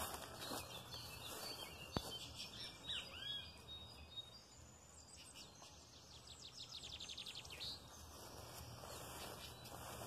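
Birds calling faintly outdoors: a swooping call about three seconds in, then a quick run of high repeated notes for a couple of seconds in the middle, with a single sharp click near the start.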